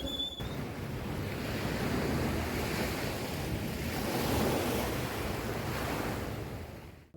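Surf washing onto a beach, with wind buffeting the microphone; the rush swells and eases, then fades out near the end.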